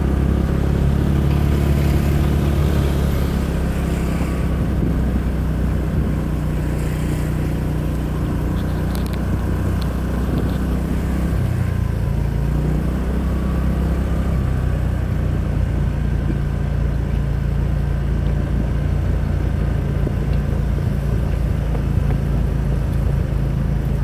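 Honda PCX scooter's single-cylinder engine running steadily while under way. About halfway through its pitch shifts and then settles again as the speed changes.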